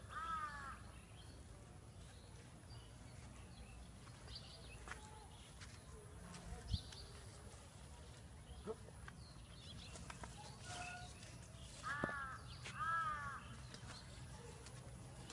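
A crow cawing, two harsh caws right at the start and two more near the end, over faint outdoor background. A single sharp knock sounds about halfway through.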